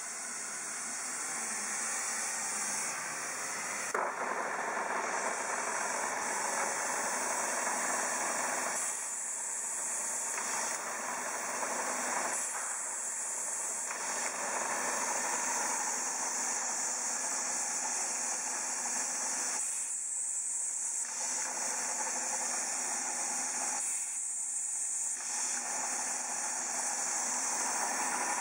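Clausing Model 2224 drill press running: a steady whirring hiss from its motor and belt drive, with one sharp click about four seconds in.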